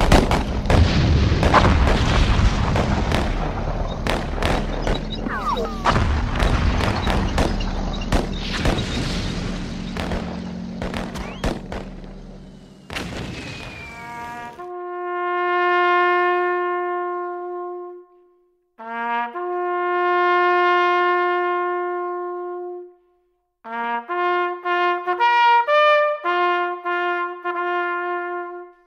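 Battlefield sound effects of gunfire and explosions: a dense noise of many sharp cracks that fades away about halfway through. Then a solo trumpet plays a slow call: two long held notes, each led in by a short lower one, then a run of shorter notes.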